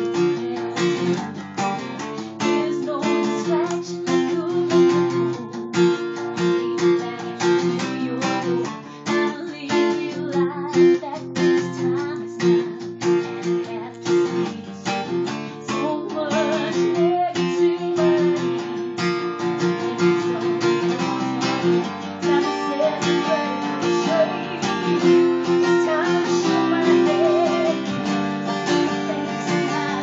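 Acoustic guitar strummed in a steady rhythm, with a woman singing over it in a live acoustic pop-rock performance, recorded on a tablet's microphone.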